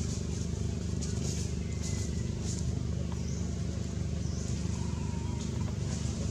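Steady low mechanical hum, like an engine running at a constant speed, with faint high chirps over it.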